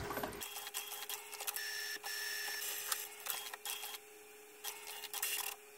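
HP DeskJet 3070A inkjet printer running its printhead cleaning cycle and feeding out the cleaning page: a steady whine with many clicks and ticks of the mechanism, and a brief higher tone about two seconds in. The page shows whether ink now flows through the black nozzles after a manual cleaning of the printhead.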